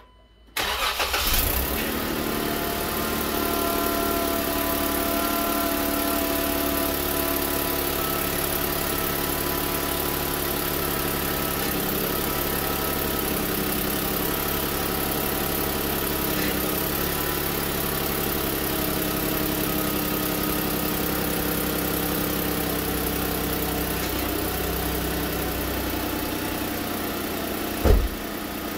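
2015 Jeep Wrangler Sport's engine cranks briefly and catches about half a second in, then idles steadily. A single sharp knock near the end.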